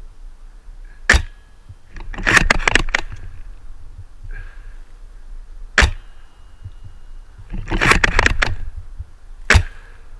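A spring-powered CYMA VSR-10 bolt-action airsoft sniper rifle, upgraded to 550 FPS, fires three sharp shots about four seconds apart. A rattling bolt cycle follows about a second after each of the first two shots.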